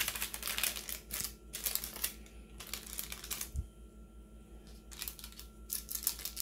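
Parchment paper crackling and rustling in a run of short, irregular crackles as it is pressed flat and folded back from the sides of a freshly baked loaf cake.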